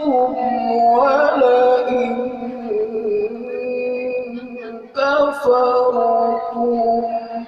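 Melodic Quran recitation: a reciter's voice holds long, ornamented vowel notes with wavering pitch. It breaks off briefly about five seconds in, then starts a new held phrase.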